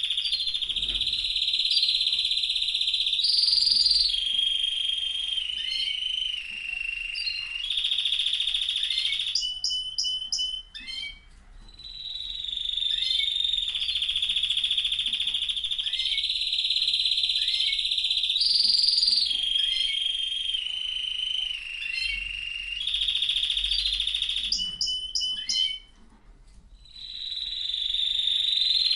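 Domestic canary singing a long continuous song of rolling trills, each held at a steady pitch for a second or two before jumping to the next, broken by short choppy phrases and two brief pauses. The same run of phrases repeats about every fifteen seconds.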